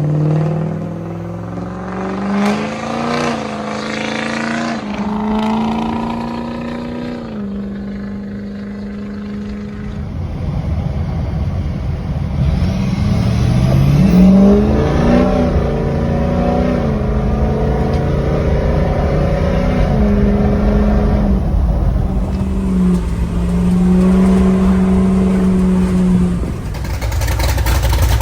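Ford 6.0 Power Stroke V8 turbodiesel running through a new 5-inch Flo Pro exhaust, its pitch climbing, holding and dropping several times as the truck accelerates. From about ten seconds in, a steady rushing road and wind noise sits under the engine.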